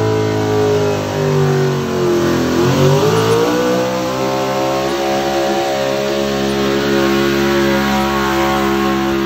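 Pickup truck engine running hard at high revs, pulling a weight-transfer sled under heavy load. Its pitch sags over the first two and a half seconds, then climbs back quickly and holds steady.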